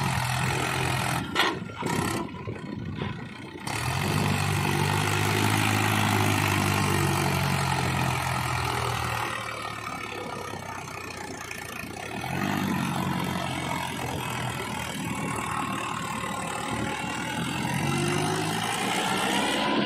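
Mahindra 585 DI tractor's four-cylinder diesel engine labouring under load as the tractor pushes up through deep sand, the revs rising and falling in spells, with a rise in pitch near the end.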